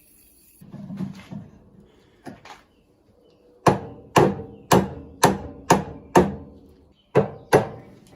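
Hammer blows on metal: six even strikes about half a second apart, then after a short pause two more, each with a brief ring. A few softer knocks and scrapes come before the blows.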